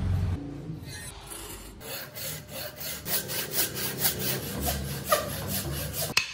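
Hand saw cutting into a thick block of wood. It rasps in quick, even strokes, about four a second, starting about two seconds in.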